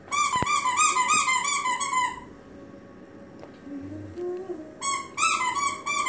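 Rubber squeaky dog toy squeezed over and over: a quick run of squeaks, about five a second, for about two seconds, then a pause and a second run near the end.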